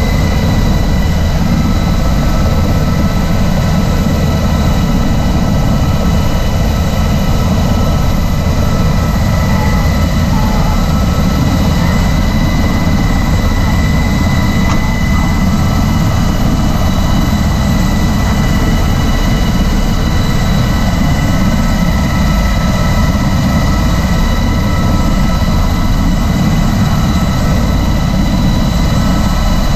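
MH-60S Seahawk helicopter's twin turboshaft engines and main rotor running, heard from inside the cabin with the side door open: a steady loud drone with a high turbine whine over a dense low rotor rumble.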